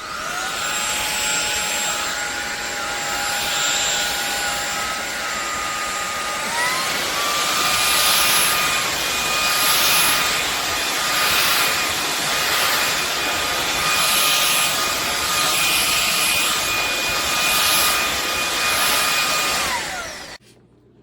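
SunSare X7A cordless stick vacuum cleaner switching on and running with a steady high motor whine. About six seconds in, the whine steps up to a higher pitch and stays there, with the suction noise swelling and easing about every second and a half. The motor shuts off near the end, its whine falling away.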